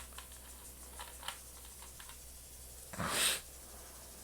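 Light plastic clicks and taps as a keycap is handled and pushed down onto a mechanical keyboard switch, then a short, loud breath about three seconds in.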